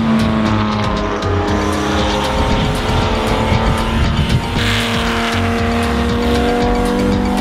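Background music: held chords that change about halfway through, over a steady ticking beat.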